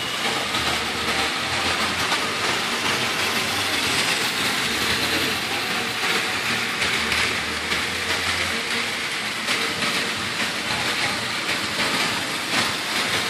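Many battery-powered Plarail toy trains running at once on a multi-level plastic track layout: a steady, dense whirring and clattering of small motors and wheels on the plastic track.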